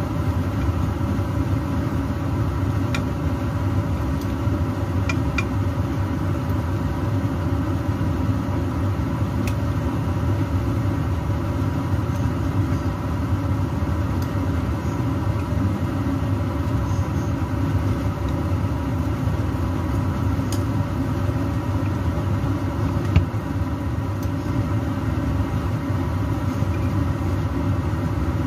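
A steady machine hum with a few light clicks of metal utensils against a pan, one a little sharper late on.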